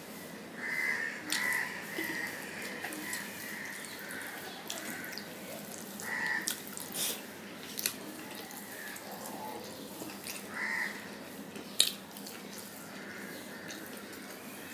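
Close eating sounds of a hand mixing rice and curry on a steel plate and chewing, with several sharp clicks, one louder near the end. Over it a bird calls again and again in short harsh calls.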